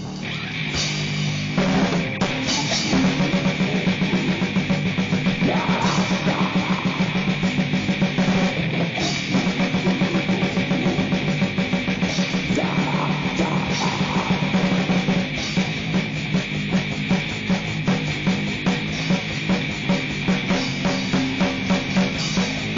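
Lo-fi grindcore/noise music: distorted guitar and bass over fast, pounding drums, with a harsh noise layer. About two-thirds of the way through, the beat changes to more spaced hits, about three a second.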